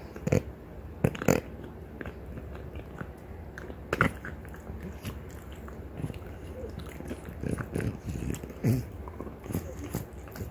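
French bulldog gnawing on a deer antler: irregular hard scraping and crunching of teeth on antler, with a few sharper clicks.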